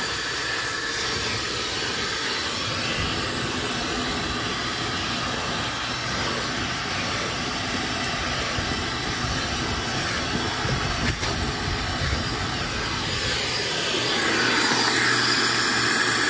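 Shop vac running steadily, its hose nozzle drawing air at a car's floor carpet. It grows louder and higher near the end.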